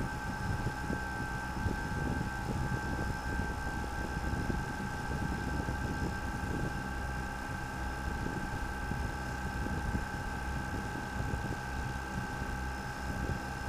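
Quadcopter drone hovering close by: its propellers give a steady, even whine with a second, higher tone above it, over a fluctuating low rumble.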